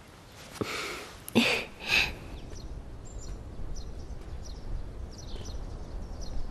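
Outdoor ambience of small birds chirping over a low steady background, after a few short bursts of noise in the first two seconds.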